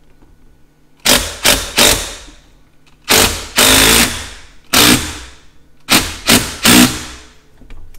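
DeWalt impact driver with a flexible extension and T30 Torx bit hammering in short bursts as it snugs down the fasteners of snowmobile track stud backer plates: three quick bursts about a second in, a longer burst of about a second near the middle, one short burst, then three more quick bursts near the end.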